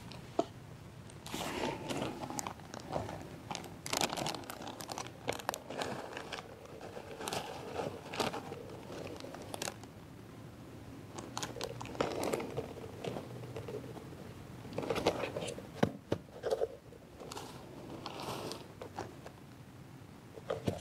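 Plastic freezer bag crinkling and rustling as crumbled soil is tipped into it, with irregular crunches and crackles of the soil and bag.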